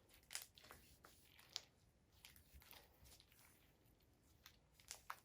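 Faint, scattered crackles and small pops of homemade slime being handled by hand; the slime is a crunchy one.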